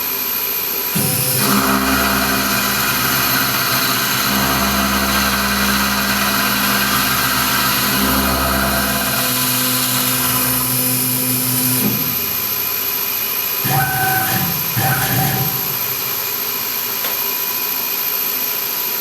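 Tormach PCNC 1100 CNC mill running and cutting a 6061 aluminum block: a steady machining drone that shifts in tone about twelve seconds in.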